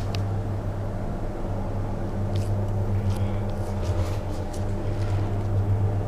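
Steady low mechanical hum with a few faint clicks.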